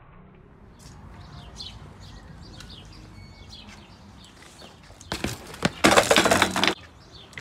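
Birds chirping, then a BMX bike falling onto brick paving about five seconds in: a sharp clatter followed by a loud metallic crash and scrape lasting most of a second.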